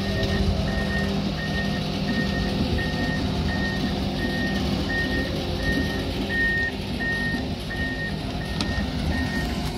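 Komatsu PC170LC-11 hydraulic excavator's travel alarm beeping steadily about twice a second over the diesel engine's steady rumble as the machine tracks.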